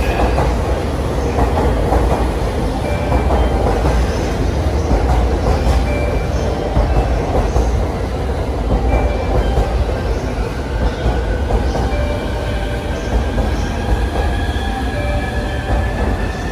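JR commuter electric multiple-unit train arriving and running past along the platform: a steady rumble of wheels on rail, with a thin whine rising slowly in pitch over the second half.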